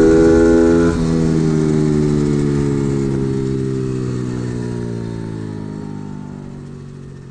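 A 90cc single-gear pit bike's single-cylinder engine running at high revs; about a second in the note dips and then falls slowly as engine speed drops, the sound fading away toward the end.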